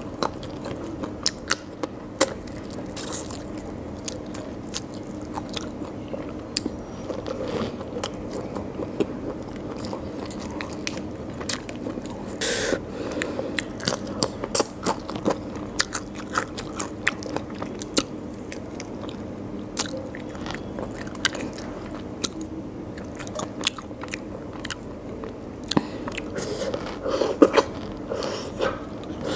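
Close-miked eating by hand: wet chewing and biting of fried prawns and curry, with many sharp mouth clicks and smacks. A few louder bites come near the end.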